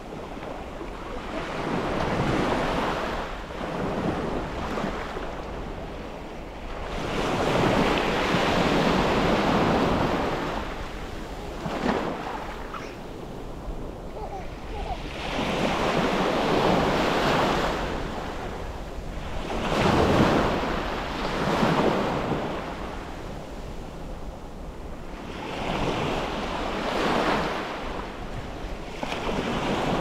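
Small sea waves breaking and washing up a sandy beach, the rush swelling and fading every few seconds, over a steady low rumble of wind on the microphone.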